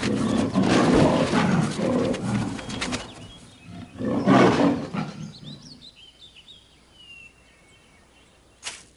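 Tiger growling and roaring in two loud spells, the second about four seconds in, then birds chirping faintly, and a sharp crack near the end.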